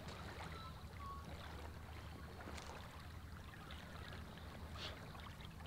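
Small waves lapping faintly at a lake's edge, with a steady low rumble of wind on the microphone.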